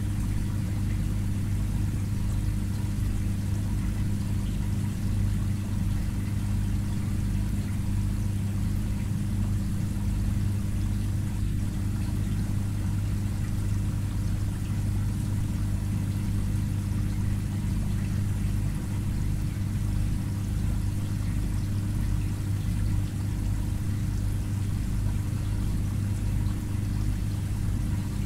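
Aquarium filter pump humming steadily, with a low even drone and a soft wash of moving water over it.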